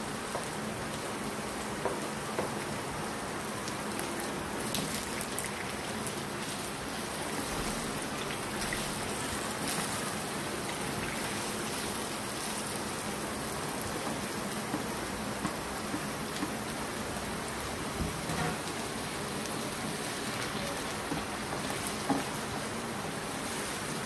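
Chicken and vegetables sizzling in hot oil in a wok during stir-frying: a steady crackling hiss with scattered louder crackles.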